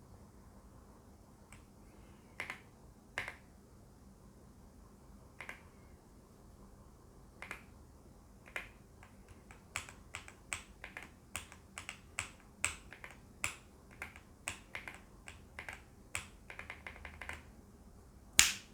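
Keystrokes on a Heavy Shell Kira96 mechanical keyboard with KTT Cabbage Tofu switches and PBT keycaps. A few single presses come first, then fast, uneven typing, and one much louder keystroke near the end.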